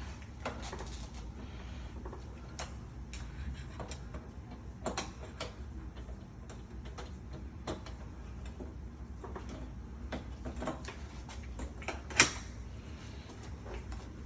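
Irregular metallic clicks and light taps of a mortise lock and hand tools being worked in a door, with one sharp knock about twelve seconds in, over a low steady hum.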